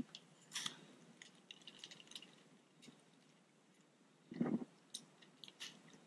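Faint, scattered crinkling of a clear plastic bag as a paint protection film sheet is pulled out of it.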